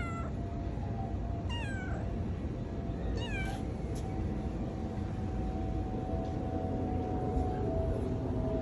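Domestic cat meowing in short calls that fall in pitch: the tail of one at the start, then two more in the first four seconds. A steady low background rumble runs underneath.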